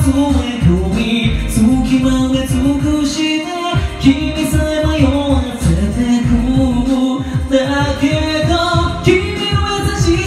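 Karaoke: a man singing a pop song into a microphone over the backing track, which has a steady beat.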